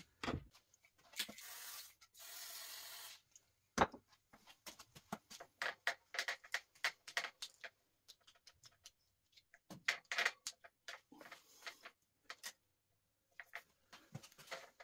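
Hand work on a chrome steel handlebar and its brake lever clamp: irregular metal clicks, scrapes and rubbing. It includes a steady hiss lasting about a second near the start and a single sharp knock about four seconds in.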